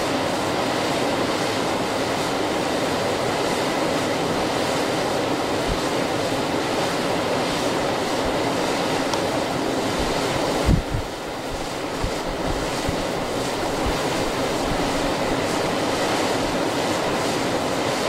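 River water rushing steadily over shallows, with a brief low thump about eleven seconds in.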